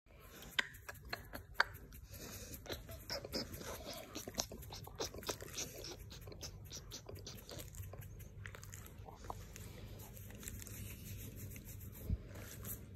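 A hand rubbing and scratching a pit bull's short chest fur, rustling with many small clicks and crackles, busiest in the first half and softer after. A single low thump comes near the end.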